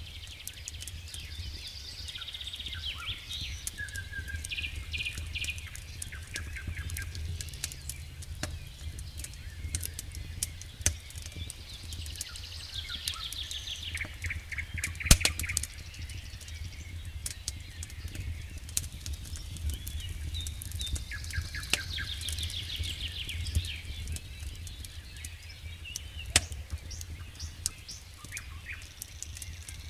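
Wood campfire crackling with scattered sharp pops, one loud pop about halfway through. Songbirds sing repeated trilled and chirping phrases in the background, over a steady low rumble.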